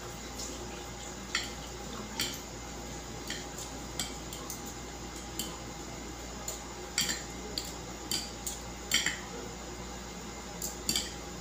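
A fork and chopsticks clinking against plates while tossing and mixing instant pancit canton noodles. The sharp clinks come irregularly, a quick cluster past the middle, over a steady faint hum.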